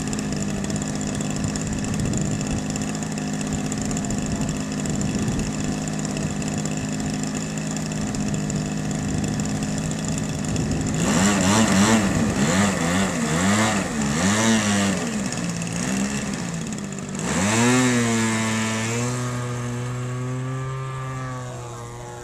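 Engine and propeller of a 106-inch Hangar 9 Piper Cub model plane, idling steadily on the ground. About halfway through, the throttle is blipped up and down several times. Then it opens up to high power for the takeoff, and the sound fades as the plane climbs away.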